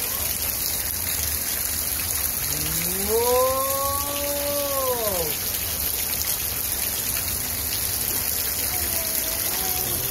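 Thin stream of water run-off falling from a rock overhang and splattering below, a steady hiss like rain. About two and a half seconds in, a long drawn-out voice rises and falls for about three seconds.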